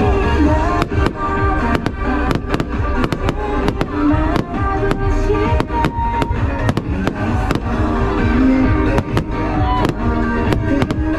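Fireworks bursting, with many sharp bangs and cracks in quick succession. Loud pop music with singing plays under them.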